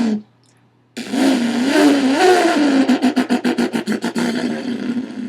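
A mouth-made race car imitation, voiced through cupped hands: a buzzing engine-like drone whose pitch rises and falls like revving, with a fast fluttering stutter around the middle. A short burst of the same sound ends just as it begins.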